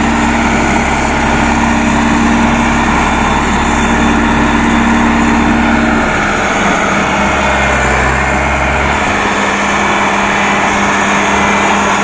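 Case 1107 EX single-drum road roller's diesel engine running steadily as the roller drives forward. The engine note shifts a little about halfway through and again a few seconds later.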